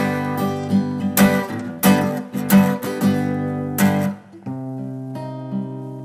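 Acoustic guitar playing strummed chords at a steady pace. About four seconds in the strumming stops and it goes on more softly with picked, ringing notes.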